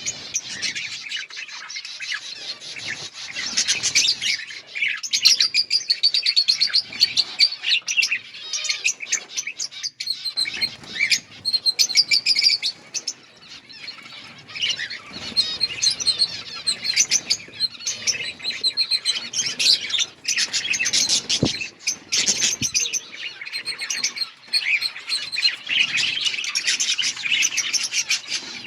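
A flock of budgerigars chirping together in a colony, a continuous dense chatter of many overlapping high chirps.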